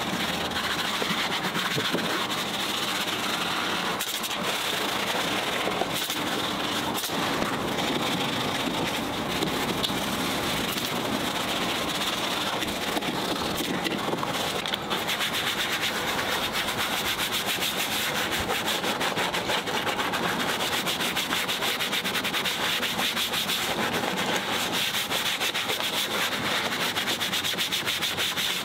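A detailing brush scrubbing a foam-covered engine bay: fast, steady scratchy rubbing of bristles over wet plastic and metal surfaces coated in all-purpose cleaner.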